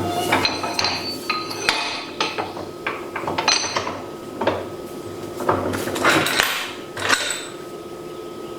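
Irregular metallic clinks and knocks of metal forge-burner parts being handled and tapped, some ringing briefly, over a steady machine hum; the knocking stops about seven seconds in.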